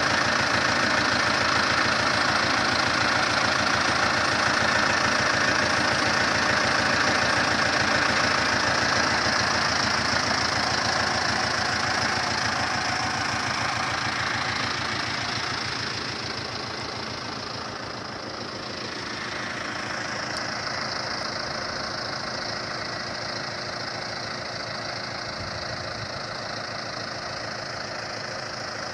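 Zetor 7745 Turbo tractor's four-cylinder turbocharged diesel engine running steadily while ploughing with a three-furrow plough. It grows quieter a little past halfway and then holds steady.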